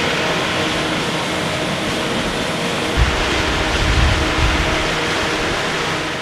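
A 42-inch axial flow pump at full capacity, its discharge pipe throwing a heavy torrent of water that pours and splashes steadily, with a steady engine hum beneath. Heavy low thumps come about three and four seconds in.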